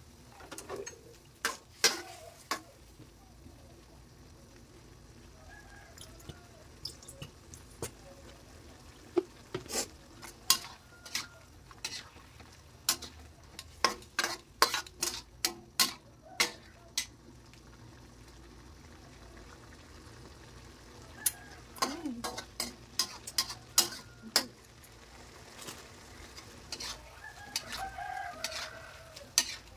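Metal spatula scraping and knocking against a wok while stir-frying shrimp, tofu and bean sprouts, in bursts with quieter pauses between, over a light sizzle. A rooster crows in the background near the end.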